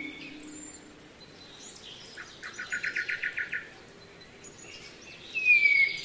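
Songbird calls: a fast series of about ten short, evenly spaced notes in the middle, and a short falling whistle near the end, over a steady background hiss.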